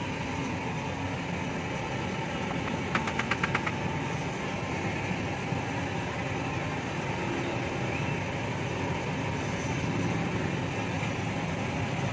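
A steady, engine-like drone runs throughout. About three seconds in there is a quick run of about seven light ticks.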